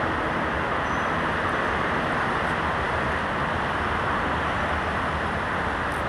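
Steady vehicle noise, an even rush with no single pass-by, horn or engine note standing out.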